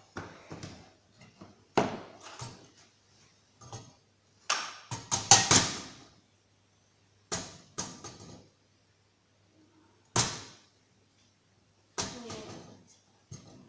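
Stones being set on and lifted off an old balance scale: a series of irregular knocks and clatters, the loudest run about five to six seconds in.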